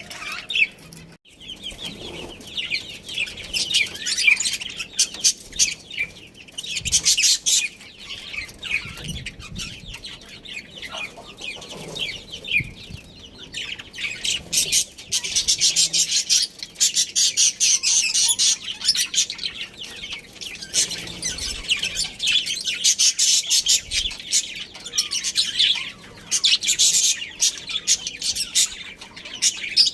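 Budgerigars chirping and chattering, many quick overlapping high calls in a continuous stream.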